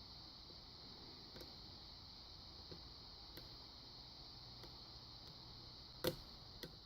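Faint, scattered ticks of a lock pick working the pins inside a Kwikset pin-tumbler lock under tension, with a sharper click about six seconds in, which the picker feels as a pin setting out of pin 1.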